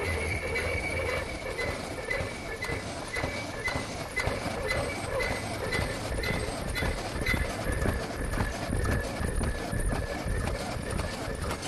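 Zipper-bag cutting machine running, clacking in an even rhythm of about two strokes a second over a steady machine hum.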